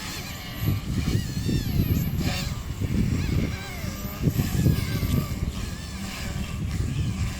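Car running with an uneven, surging low rumble and faint wavering squeals above it: the noise the car is being recorded for.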